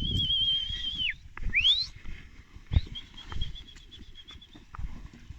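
A person whistling. A long high held whistle breaks off with a falling slide about a second in, a short upward-sliding whistle follows, then a fainter wavering whistle, over low thumps and rustling.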